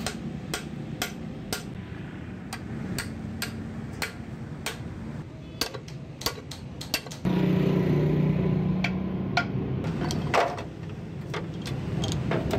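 Steel hammer striking a drift against the internals of a Mazda manual gearbox being taken apart, sharp metallic blows about twice a second, then more scattered. A steady low drone comes in about seven seconds in.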